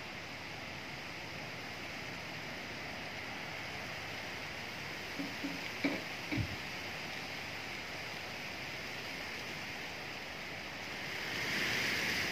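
Wind rustling the leaves of trees: a steady leafy hiss that swells in a gust near the end. A few brief soft sounds come about halfway through.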